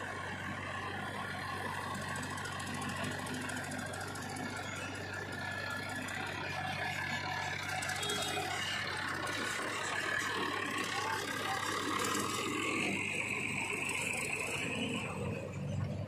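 Diesel engines of a JCB 3DX backhoe loader and a Massey Ferguson 7250 DI tractor running, while the tractor pulls a trolley heavily loaded with sand. The steady engine hum changes about halfway through.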